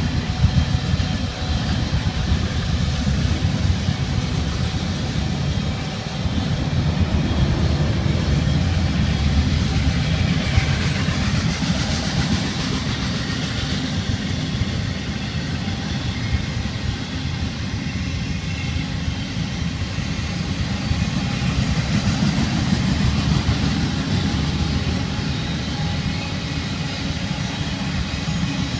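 Freight train of autorack cars rolling past close by, with a steady rumble of steel wheels on the rails.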